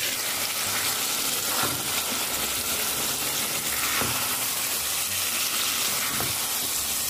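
Raw chicken pieces sizzling as they fry in oil and spice masala in a pan, a steady hiss, with a few faint knocks from a stirring spoon.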